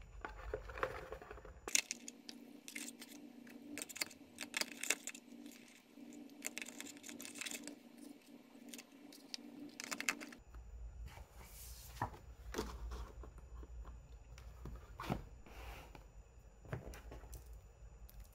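Unboxing handling sounds: a phone lifted out of its cardboard box tray and clear plastic packaging handled, giving scattered light clicks, taps and short scrapes.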